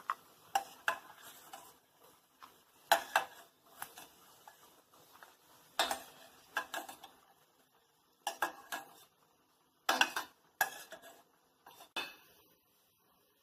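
Steel slotted spoon clinking and scraping against a steel pan and a small steel bowl as fried cashews and almonds are scooped out of ghee and tipped into the bowl. The clinks come in short scattered clusters with quiet gaps between.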